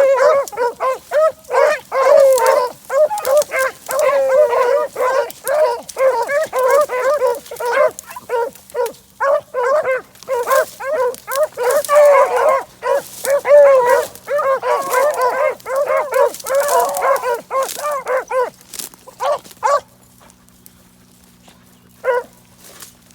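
Rabbit-hunting hounds baying and barking in quick, overlapping cries, the sound of dogs in full cry on a rabbit's trail. The cry stops about twenty seconds in, and one last short bark comes near the end.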